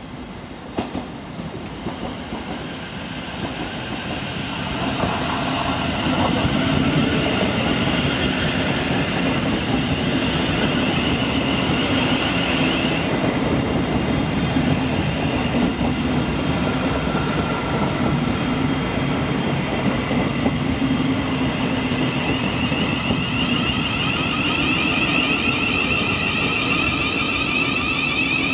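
Thameslink electric multiple-unit train approaching and running past along the platform. The rumble of wheels and motors builds over the first few seconds, then holds steady. A high whine comes and goes, strongest near the end.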